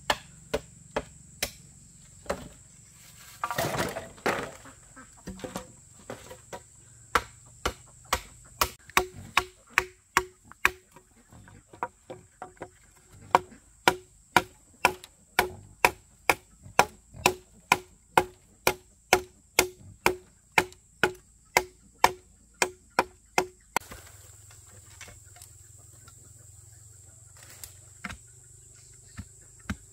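A hand tool striking repeatedly: a few scattered blows, then a steady run of about two a second, each with a short ring, that stops about two-thirds of the way through. Insects chirr steadily underneath.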